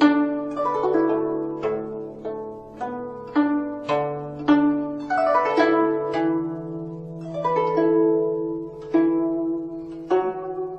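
Background music: plucked-string melody, harp- or zither-like, over a held low note.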